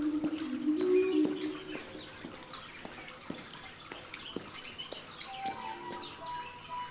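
Small birds chirping here and there, under soft music of long held notes that step slowly in pitch. The music fades about two seconds in, and a new high held note enters near the end.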